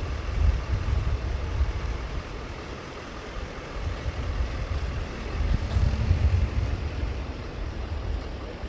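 Chevrolet Silverado 2500 HD pickup driving slowly past while towing an enclosed tandem-axle trailer: a low, uneven engine and road rumble.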